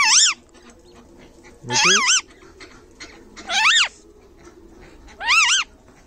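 A parrot calling four times in a regular series, about every two seconds; each call is a loud two-part squawk that rises and falls in pitch.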